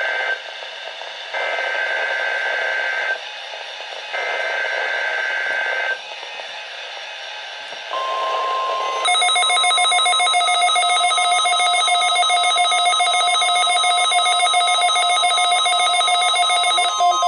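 Emergency Alert System Required Monthly Test tones. First come bursts of SAME digital header data tones about a second apart: the tail of one, then two more. About eight seconds in a single steady tone begins, and about a second later it is joined by the harsh, steady EAS attention signal, which runs until near the end.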